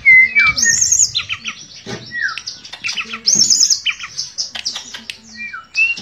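Caged tledekan (a blue flycatcher) singing: loud whistled phrases of high arching notes and down-slurred notes, in two bursts with a short pause near the end.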